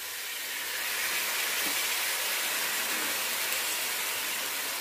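Steady sizzling hiss from a hot pot as a ketchup, soy sauce and sugar sauce is poured onto frying onions, tomatoes, carrots and peppers, swelling about a second in as the sauce hits the pan.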